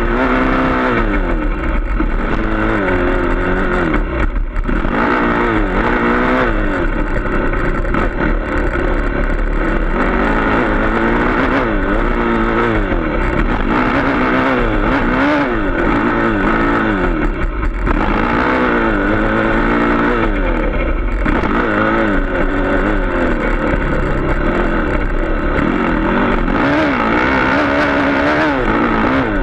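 Dirt bike engine heard close up from the bike, revving up and dropping off again and again as the rider works the throttle and gears through the track's jumps and turns.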